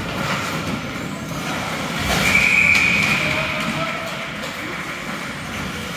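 A referee's whistle blown once, a single high steady blast of under a second about two seconds in, over the constant background noise of the game and spectators.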